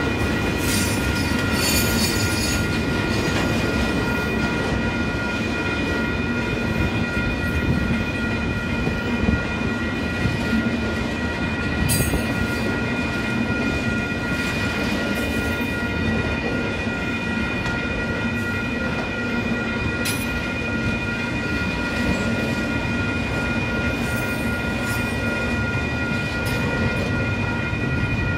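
Double-stack intermodal container train's well cars rolling past close by: a steady rumble of steel wheels on rail with a few sharp clanks, over a constant high-pitched ringing tone.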